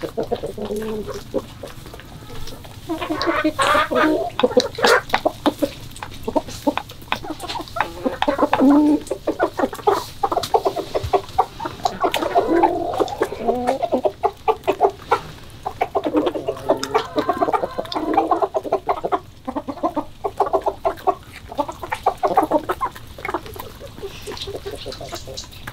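A flock of chickens clucking repeatedly as they feed, with many quick sharp taps of beaks pecking grain off a concrete floor.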